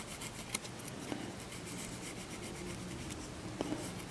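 Cotton swab scrubbing inside a multitester's plastic battery compartment, cleaning out corrosion: a faint, continuous scratchy rubbing with a few light clicks.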